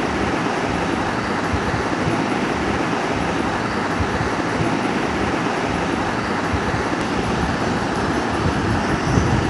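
Steady background noise with a low hum, unchanging throughout.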